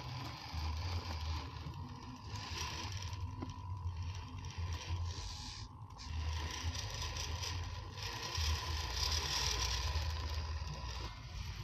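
1/10-scale RC rock crawler's electric motor and drivetrain gears whining as it climbs loose gravel, with the gravel crunching and scraping under the tyres. The sound comes in surges as the throttle is worked.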